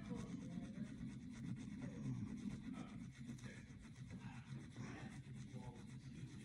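Steel broadhead bleeder blade rubbed in small circles on a sharpening stone: a faint, continuous scratchy rubbing over a low steady hum, cutting off abruptly near the end.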